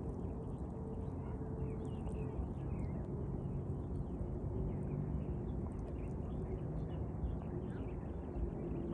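A steady low rumble with a faint hum, and small birds chirping faintly throughout.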